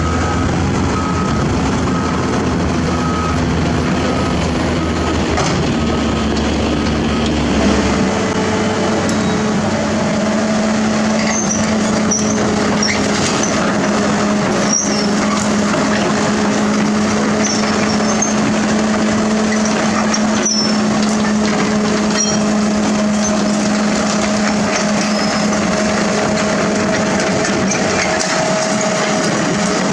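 A Mitsubishi Fuso dump truck's diesel engine running under load as its body tips, with a repeating high beep about once a second. About 7 seconds in this gives way to CAT hydraulic excavators' diesel engines and hydraulics running with a steady hum, with a few clicks and knocks of rock.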